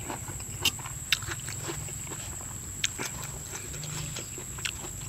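Close-miked eating: chewing and mouth sounds with a few sharp clicks of a spoon against the dishes, over a steady low hum and a thin steady high whine.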